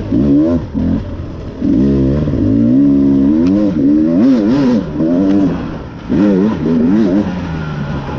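Beta 300 RR Race Edition's two-stroke single-cylinder engine revving up and down with quick throttle changes as the dirt bike is ridden. It eases off about a second in and again around six seconds, and drops to a lower, steadier note near the end.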